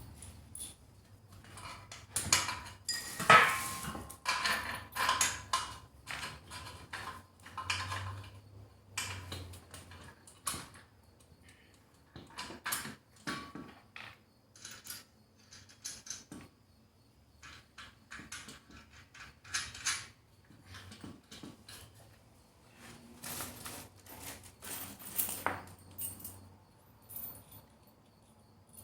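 Steel power-rack parts and bolts clinking and knocking as they are handled and laid out, in irregular taps and clanks, the loudest clank about three seconds in.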